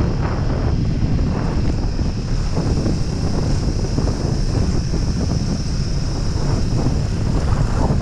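Wind buffeting the microphone over the steady running of a Suzuki Gixxer 155's single-cylinder engine, riding along a loose dirt road.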